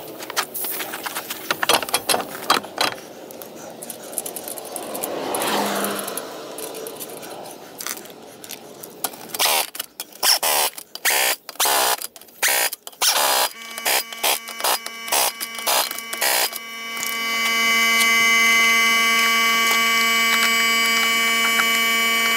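A truck wheel being hung on its hub and the lug nuts started, with scrapes and clicks, then an impact wrench run in several short bursts to tighten the lug nuts. For the last few seconds a steady hum comes in.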